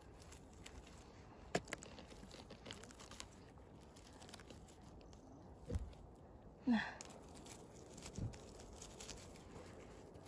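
Faint rustling and crunching of chanterelle mushrooms being plucked from dry pine needles and forest litter, with a few small clicks and snaps. A brief, louder rising sound comes a little past halfway.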